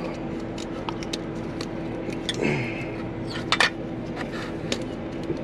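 Scattered light clicks and clinks of metal hand tools being handled at the engine, with a couple of sharper clicks about three and a half seconds in, over a steady low hum.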